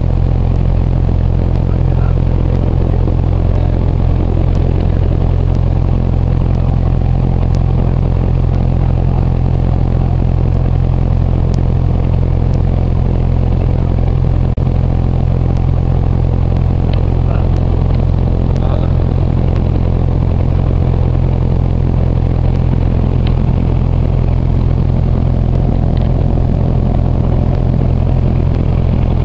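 Cessna 172 piston engine and propeller heard from inside the cabin, running with a loud, steady drone.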